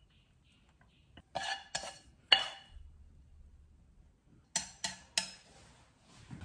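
Nonstick wok and plastic spatula scraping and clinking against a ceramic plate as stir-fried rice noodles are tipped out: a few short clatters around two seconds in, then three sharp knocks near five seconds.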